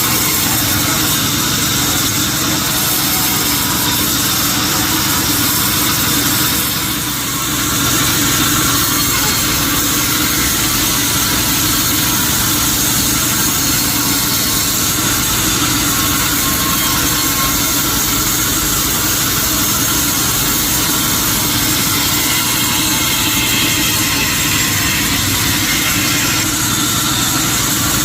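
Sawmill machinery running steadily with a loud engine drone, dipping briefly about seven seconds in.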